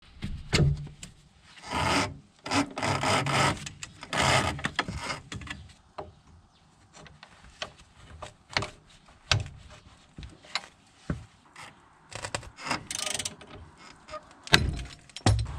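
Steel ball-joint extraction tool being fitted around a car's tie rod end by hand: bursts of metal scraping and rubbing in the first few seconds, then scattered clicks and clinks, with two sharper knocks near the end.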